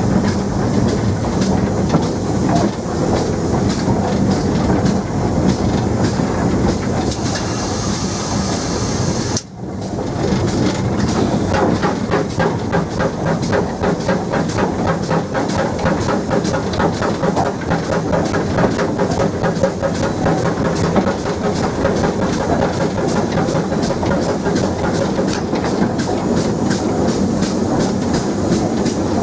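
A GWR 57xx 0-6-0 pannier tank steam locomotive running, heard from its footplate: a steady rhythmic clatter of the engine and wheels working, with steam hissing. The sound drops out sharply for a moment about nine and a half seconds in.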